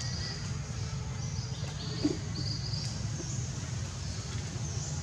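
Outdoor ambience: short high chirps repeating over a steady low rumble, with one brief knock about two seconds in.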